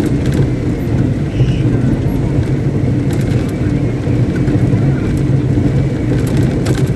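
Caterpillar 777D haul truck's diesel engine running steadily on a stationary ground test: a loud, even low drone that holds the same pitch throughout.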